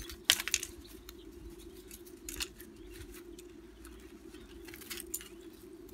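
Gloved hands pulling apart a tangle of fine copper winding wire stripped from electric motors: crisp rustling with a few sharp snaps, the loudest about a third of a second in and others near two and a half and five seconds. A steady low hum runs underneath.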